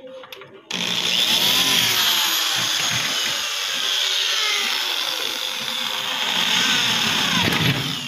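Electric drill running against a sliding-window frame, drilling the holes that mount a crescent lock. It starts abruptly about a second in, its motor pitch rising and falling with the trigger, and stops just before the end.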